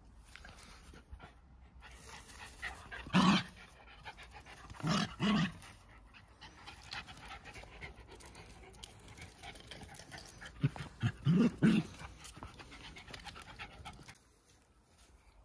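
Jack Russell terriers play-wrestling: panting and scuffling, with a few short loud dog sounds: one about three seconds in, two around five seconds, and a quick run of them near eleven seconds.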